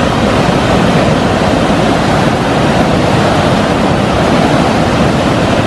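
Floodwater rushing through four open spillway shutters of a dam barrage and churning below the gates: a loud, steady roar of falling water.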